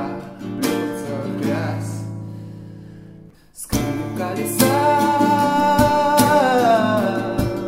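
Acoustic guitar strummed with a young man singing. A chord rings and fades about a second in and is damped just after three seconds. Then strumming resumes under a long held sung note that falls away near the end.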